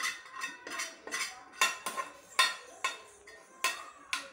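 A metal spoon scraping and knocking against a kadai as fried rice is tipped out into a steel mixer-grinder jar: a quick run of sharp metallic clinks, about three a second, each ringing briefly.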